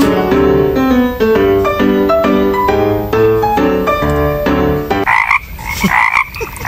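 Background music: a melody of short keyboard notes, each held briefly. About five seconds in the music gives way to a run of repeated croaking calls.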